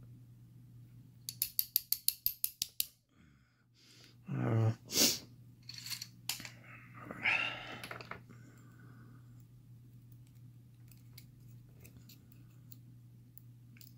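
A quick run of about ten small metallic clicks from handling the parts of a disassembled padlock, then a short throat noise and a sharp breath, with a few faint ticks later. A steady low hum runs underneath.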